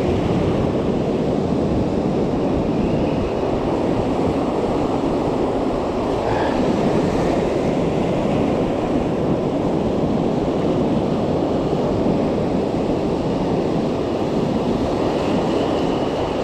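Rough sea surf churning and breaking against shore rocks, a steady rush of water, with wind buffeting the microphone.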